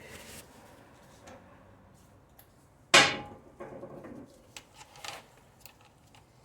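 One sharp metallic clank with a short ring about three seconds in, then a few light clicks and taps of metal tools and hub bolts being handled.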